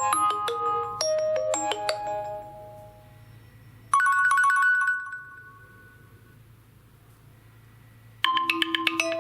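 Nokia 2.2 stock ringtones playing: a fast melody of short bell-like notes fades out about three seconds in, a single chime sounds about a second later and rings away, and a new quick melody starts near the end. A faint low hum runs underneath.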